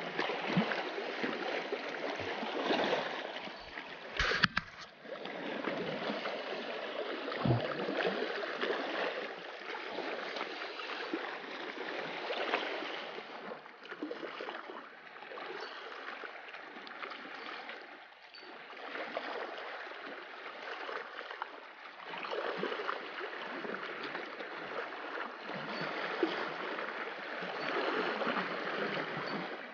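Small sea waves washing and splashing over shoreline rocks, swelling and ebbing every few seconds. A sharp knock comes about four seconds in and another at about seven and a half seconds.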